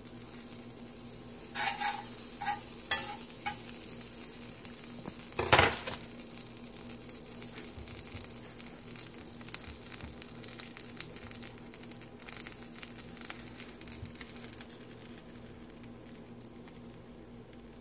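Butter sizzling in a cast iron skillet under a toasting sandwich: a steady fine crackle. A few clinks and scrapes of a knife and spatula against the pan in the first few seconds, the loudest a knock about five and a half seconds in.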